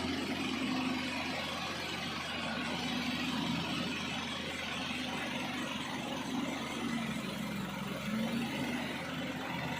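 Pindad excavator's diesel engine running steadily.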